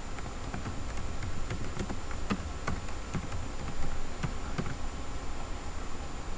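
Typing on a computer keyboard: a dozen or so irregular key clicks, stopping about five seconds in.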